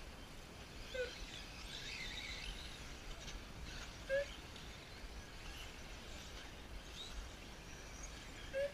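Faint open-air ambience at an off-road RC car track, with three short chirp-like beeps a few seconds apart.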